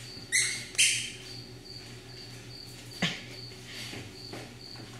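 Miniature schnauzer puppies playing with plush toys: two short, loud, high squeaks about half a second and one second in, and a sharp click about three seconds in. Through the rest, a steady high chirp repeats evenly about two to three times a second.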